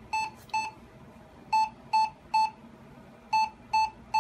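A Lenovo ThinkCentre M58 desktop sounding a power-on error beep code: short, high, identical beeps in repeating groups of three, with about a second's pause between groups. The computer is failing to start, with no video on the monitor.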